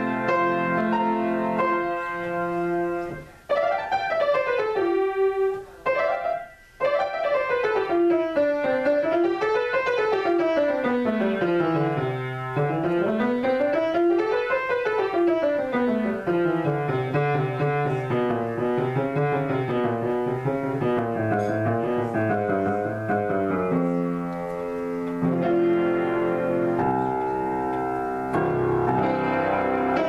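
Piano being played solo: held chords at first, then fast runs sweeping up and down the keyboard through the middle, settling back into chords near the end.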